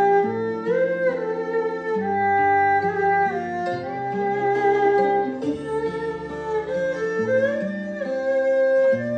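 Erhu playing a slow melody in long bowed notes with sliding pitch, over a recorded backing track. The backing is a little out of balance with the erhu.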